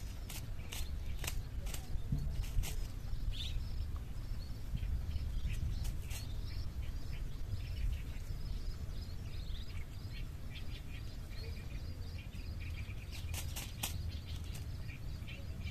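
Small birds chirping in short, scattered calls over a steady low rumble of wind on the microphone, with a few sharp clicks near the start and a short cluster of them near the end.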